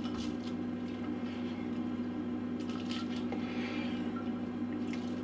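Faint soft rustles and squishes of chopped brown onion being spread by hand over raw chicken in a glass baking dish, over a steady low hum.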